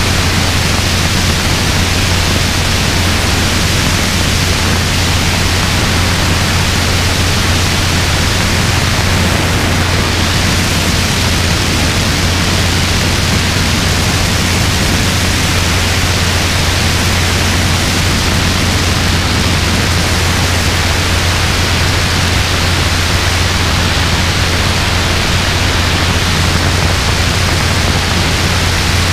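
Robinson R22 helicopter in steady flight: a loud, unchanging rush of wind on the microphone over a steady low drone from the rotors and engine.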